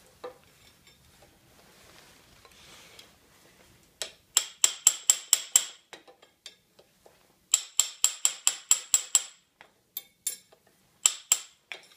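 Light metal-on-metal tapping on the fan shaft assembly as a seal retainer is tapped home: two quick runs of bright, ringing taps, about six a second, then a few single taps near the end.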